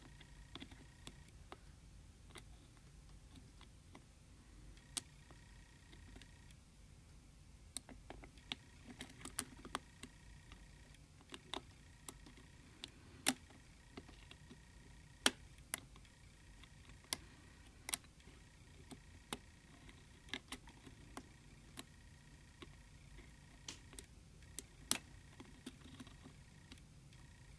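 Irregular small metallic clicks and ticks of a hook pick and tension wrench working the pins inside an Abus Diskus padlock, over a faint low hum.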